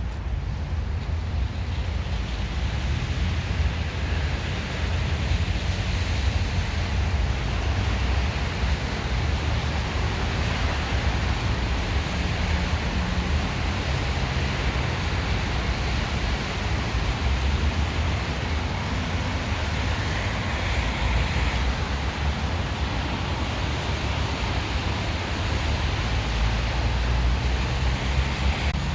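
Steady blizzard wind blowing, with a low rumble of wind buffeting the microphone.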